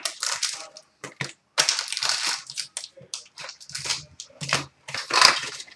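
Plastic and foil wrappers from an Upper Deck Black Diamond hockey card box crinkling and tearing in irregular bursts as the box is unwrapped by hand.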